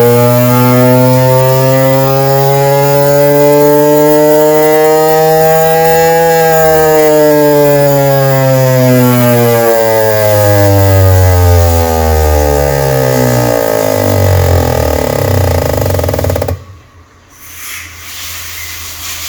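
Fuel injector test bench running the Corolla 1.8's injectors: a loud mechanical buzz whose pitch rises slowly for about six seconds, then falls steadily and cuts off suddenly near the end. This is the flow test that measures how much fuel each injector delivers.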